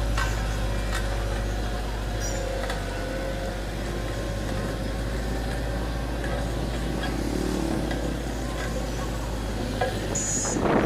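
Heavy diesel earthmoving machinery running steadily, a low continuous engine hum, with a few faint clicks and knocks.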